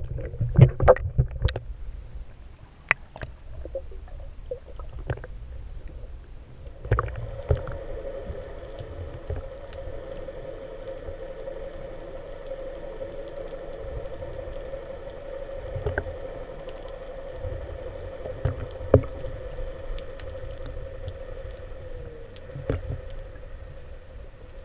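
A steady mechanical hum, like a small motor running, starts about seven seconds in and holds one pitch, dropping slightly just as it stops near the end. Scattered knocks and low rumbles of handling or water are heard throughout.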